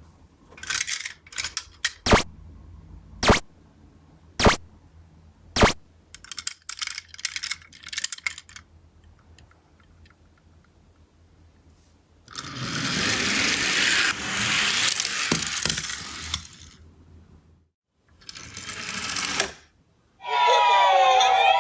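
Small toy ambulance minicars clicking and clattering as they are handled, then a loud rush of toy cars rolling down a slope, twice. About twenty seconds in, a toy ambulance siren starts up with several overlapping wailing tones.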